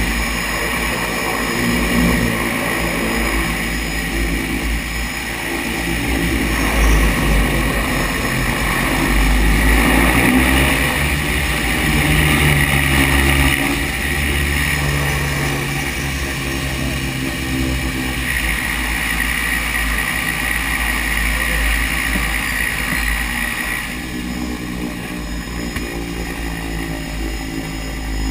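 Seaplane's turboprop engines running at taxi power, heard inside the cockpit: a steady drone with a high whine, growing louder between about 7 and 14 seconds in and easing near the end.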